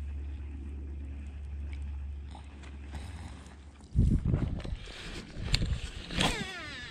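Wind rumbling on the microphone, then clothing rubbing and bumping against a chest-worn camera as a fishing rod is swung into a cast. Near the end comes a whir falling in pitch as line pays off the spinning reel spool.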